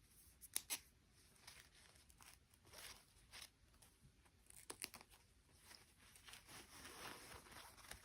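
Faint handling noise: soft rustling and crinkling broken by sharp clicks, the loudest pair about half a second in and another cluster near the five-second mark.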